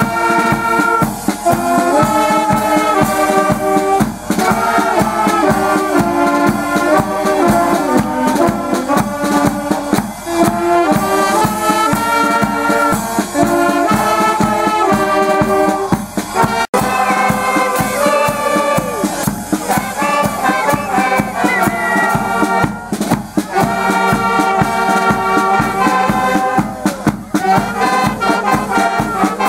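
Live brass band music, trumpets and trombones playing a lively tune together. It cuts out for an instant about two-thirds of the way through, then carries on.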